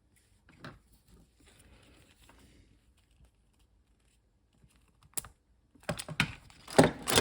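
Faint handling rustle, then from about five seconds in a quick run of sharp plastic clicks and clatters, loudest near the end: a floppy drive ribbon cable and its edge connector being handled and fitted.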